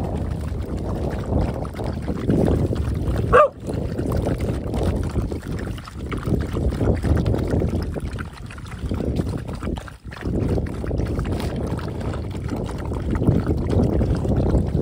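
Several dogs lapping and slurping liquid from a plastic tub, a continuous wet splashing. A short rising squeak about three and a half seconds in.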